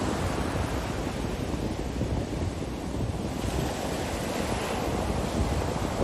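Ocean surf breaking and washing up on a beach, with wind rumbling on the microphone. The wash eases a little midway and builds again toward the end.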